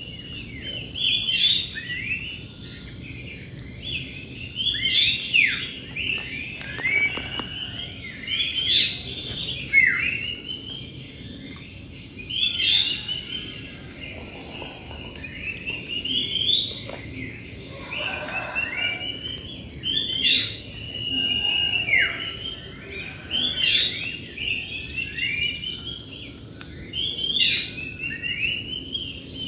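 Wild birds chirping and calling, with many short sweeping notes and a louder phrase every few seconds, over the steady high trilling of insects.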